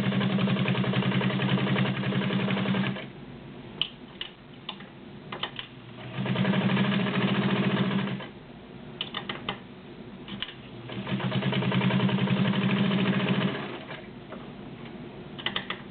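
Vintage White Super Deluxe Model MIN sewing machine stitching through five layers of denim with a size 16 needle, in three runs of a few seconds each. Between runs there are a few sharp clicks.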